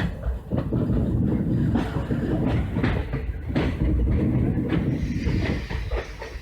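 Moving passenger train running with a heavy rumble and the wheels clattering over rail joints in irregular clacks, easing off a little near the end.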